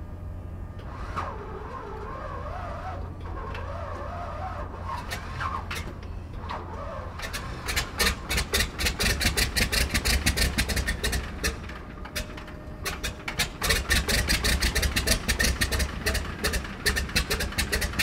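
Pratt & Whitney R-985 nine-cylinder radial engine of a Beech D17S Staggerwing catching about seven seconds in and firing in loud, uneven beats. It falters briefly a few seconds later, then picks up again into a rough idle. The engine is newly rebuilt.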